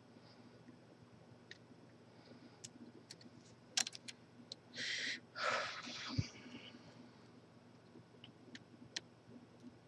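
Faint scattered metallic clicks and ticks of picks being worked in a padlock. About five seconds in come two short breathy rushes, likely a person exhaling, followed by a single sharp tap.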